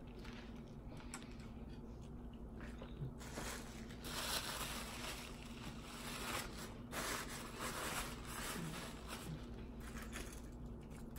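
Chewing a bite of hot sausage in a soft bun, with faint wet mouth clicks, then from about three seconds in a paper napkin crumpling and rustling as hands and mouth are wiped.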